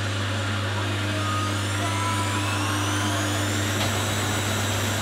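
Layered drone of household electrical appliances: a steady low hum under machine noise, with a whine that rises in pitch and levels off about four seconds in.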